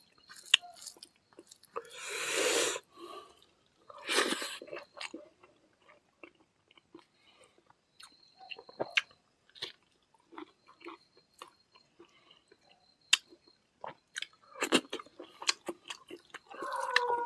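Close mouth sounds of people eating rice and curry by hand: chewing and lip smacks with many small clicks, and two longer breathy rushes about two and four seconds in.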